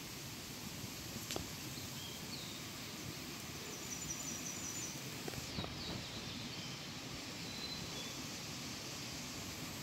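Outdoor woodland ambience: a steady hiss of background noise with a few brief, high bird calls, including a quick run of repeated notes about four seconds in. A single sharp click comes about a second and a half in.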